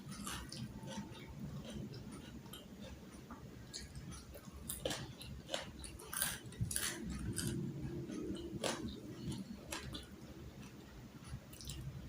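A person chewing food close to the microphone, with irregular clicks and smacks that are thickest from about four to nine seconds in.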